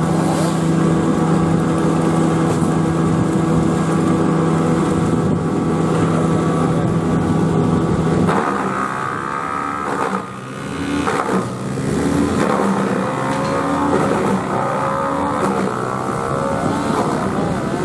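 Petrol engine of tree-felling machinery running at a steady pitch. About eight seconds in the sound changes suddenly and the pitch starts wavering up and down.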